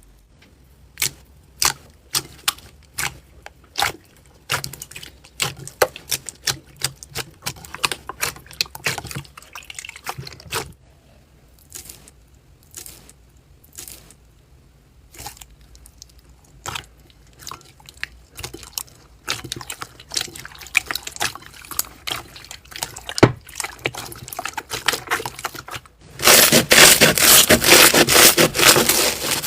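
Slime being squeezed and poked by hand, making sticky, wet clicks and pops at an uneven pace. Near the end it changes to a dense, louder crunching, typical of crunchy slime.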